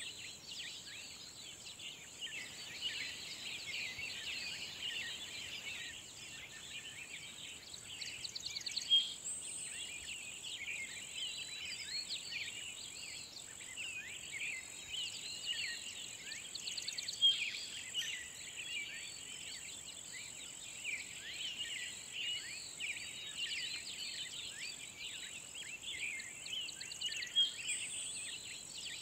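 A dense chorus of songbirds, many short chirps and trills overlapping, over a steady high-pitched buzz of insects.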